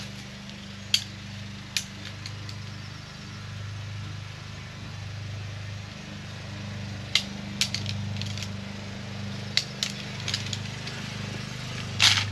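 Sharp, scattered clicks and taps of tent pole sections being handled and fitted together, with the loudest just before the end. Under them runs a steady low hum.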